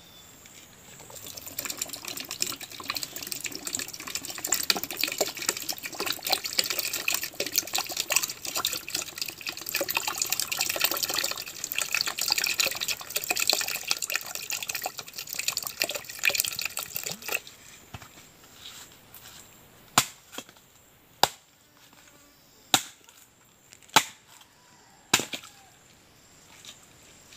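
Coconut water from a young coconut pouring and splashing into a plastic pitcher for about sixteen seconds. Then a machete chops into a fresh green coconut's husk with five sharp strikes, a little over a second apart.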